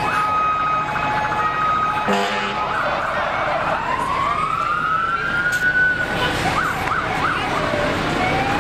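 Fire truck sirens: a steady tone for the first two seconds, then a siren winding up in a long rising wail, a few quick yelps, and another rising wail near the end.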